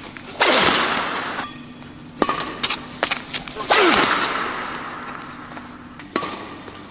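Two sharp whip-like cracks, about three seconds apart, each with a falling swoop and a long echoing fade, with a few lighter cracks between them: dramatised badminton smash hits.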